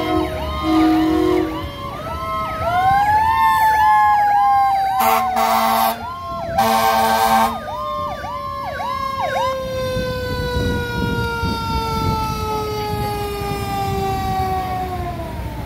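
Fire apparatus sirens. An electronic siren yelps rapidly over a mechanical siren that winds up and then slowly winds down. Two air horn blasts come about five and seven seconds in, and the yelp stops about ten seconds in.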